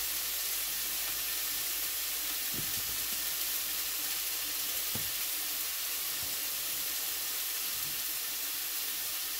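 Chops frying in a pan: a steady sizzle, with a couple of faint ticks.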